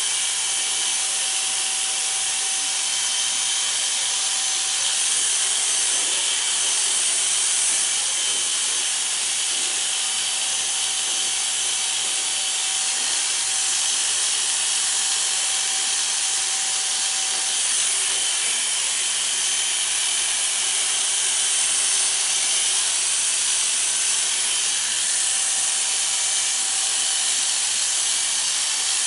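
Corded electric hair clippers running steadily while cutting hair very short on the back and sides of a head.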